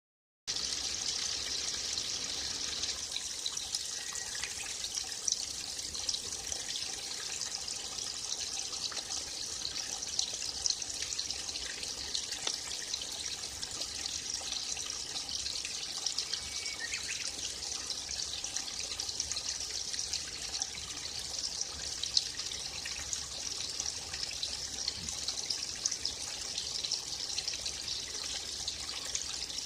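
Forest stream running and trickling steadily, with a few faint small-bird chirps now and then.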